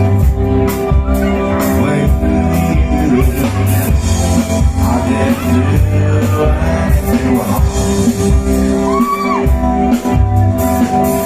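Rock band playing live in a large room: sustained guitar tones over steady drum strokes, with a sung vocal line.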